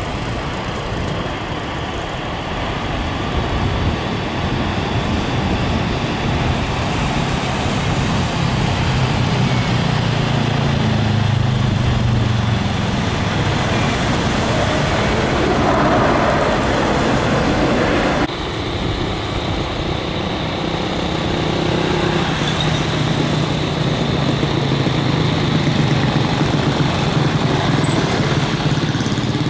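Boeing 737 airliners' jet engines: a landing jet runs past and touches down, its engine noise swelling louder just after touchdown. It cuts off abruptly about two thirds of the way in and gives way to the steady hum of another 737 on final approach.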